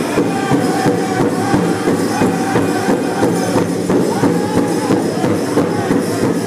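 Powwow drum group singing together over a steady, even beat struck on a shared big drum.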